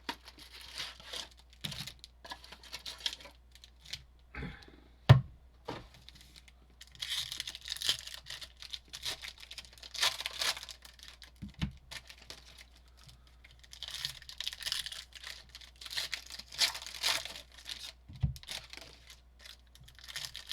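Foil trading-card packs being torn open and crinkled, with cards handled in between, in two longer spells of rustling tearing. Several short knocks break in, the sharpest about five seconds in.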